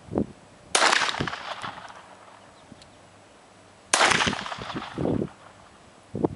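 Two gunshots about three seconds apart, each a sharp crack followed by a fading echo, with a few short dull thuds in between.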